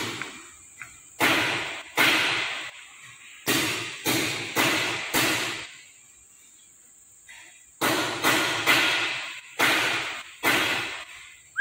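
About a dozen sharp knocks, each dying away over about half a second, coming in quick runs of two to four with a pause in the middle, over a steady high insect chirr.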